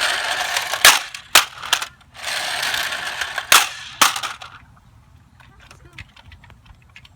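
Nerf foam-dart blaster firing in two bursts: a whirring motor with sharp clicks as darts shoot out.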